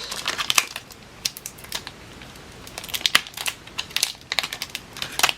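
Foil wrapper of a Pokémon trading card booster pack crinkling as it is handled and opened, with cards being sorted: irregular crackles and small clicks throughout.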